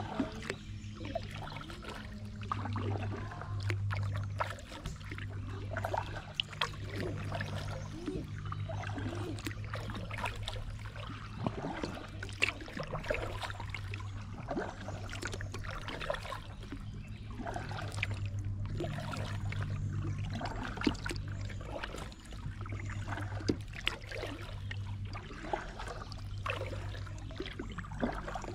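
Water trickling and lapping along a kayak's hull as it moves slowly along the river, with small splashes and clicks, over a steady low hum.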